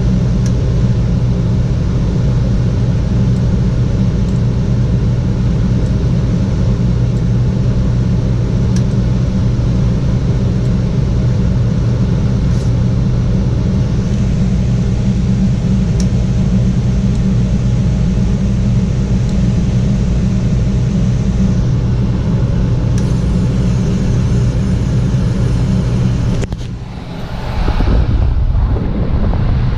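Gas furnace equipment running: a steady, loud low hum with airflow rumble. Near the end it dips briefly, then a louder rushing noise follows for about two seconds.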